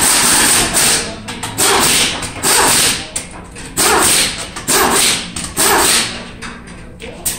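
Pneumatic impact wrench on a pickup truck's wheel, spinning the lug nuts in a series of about seven short loud bursts, about one a second.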